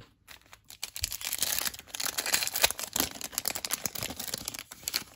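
Plastic foil wrapper of a 2024 Topps baseball card pack being torn open and crinkled in the hands: a dense run of crackling and small clicks starting about half a second in.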